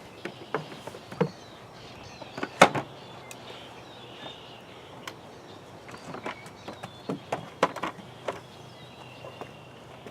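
Irregular knocks and clicks from a lawnmower being moved over steps, with one sharp bang about two and a half seconds in.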